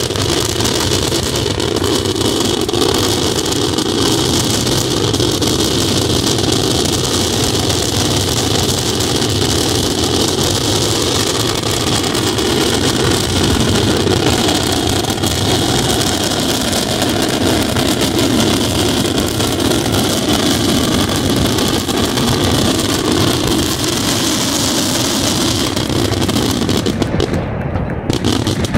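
Daytime fireworks: a dense, unbroken barrage of bangs and crackles that merge into one continuous loud noise, thinning out about a second before the end.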